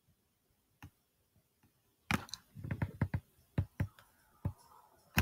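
Computer mouse clicking: a scattering of sharp clicks and light taps, one a little under a second in and about a dozen more between two and four and a half seconds in.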